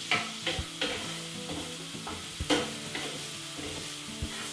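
Wooden spatula stirring and scraping chopped onion and garlic around a nonstick frying pan as they sauté in oil, with a sizzle underneath. A few short scrapes stand out, the sharpest about two and a half seconds in.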